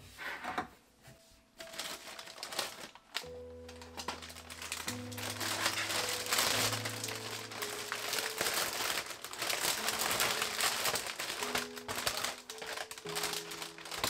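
Thin plastic snack packaging crinkling as multipacks of seaweed snacks are handled and unpacked, starting about three seconds in and busiest in the middle, over background music.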